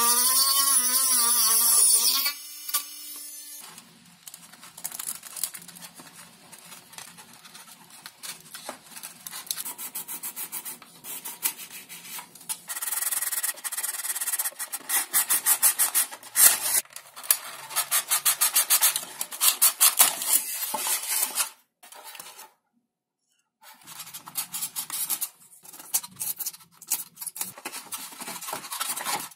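Mini rotary tool with a small cutting disc whining as it cuts a balsa strip, its pitch wavering under load, stopping about two seconds in. Then a long run of rapid hand rubbing and scraping strokes on the foam-and-balsa fuselage, loudest in the middle, with a short silent break near the end.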